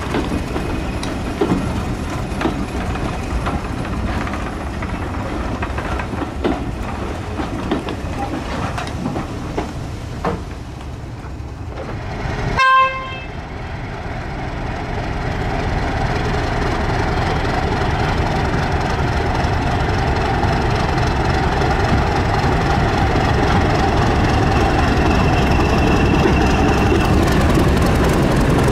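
Passenger coaches rolling past with light clicks from the wheels over the rail joints. About twelve seconds in, a Class 31 diesel locomotive gives a single short horn toot. Its English Electric V12 engine then grows steadily louder as it draws near and passes.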